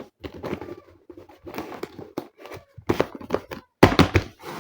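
Cardboard carton and packaging being handled and closed by hand: irregular rustling and light knocks, with a cluster of louder knocks about four seconds in.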